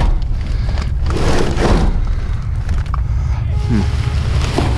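Plastic garbage bags rustling as trash is shifted off a stainless steel shelf unit, with bursts of rustling about one to two seconds in, over a steady low wind rumble on the microphone.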